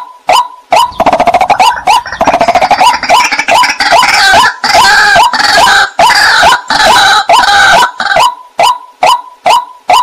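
A white-breasted waterhen calling: short, clipped notes repeating at about three a second. From about a second in until about eight seconds they give way to a loud, dense run of rapid, harsh notes, and then the repeated notes return.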